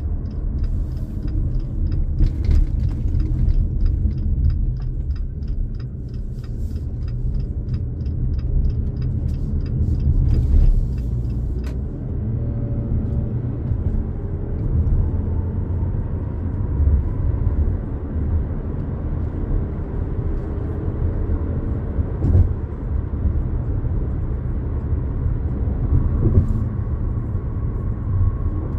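A 2022 Jeep Compass Latitude being driven, with steady low road and engine rumble. A light, regular ticking about twice a second runs through the first twelve seconds and then stops.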